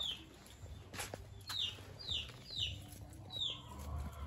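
A bird cheeping: five short, high chirps, each falling in pitch, half a second to a second apart. There is a single sharp click about a second in.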